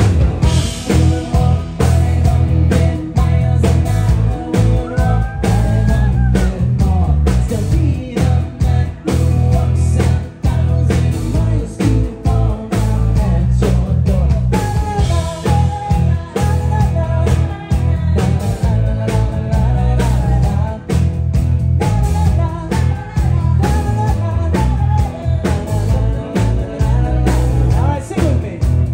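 Live band playing through a PA: a strummed acoustic guitar over a steady beat with a heavy low end, and a man singing.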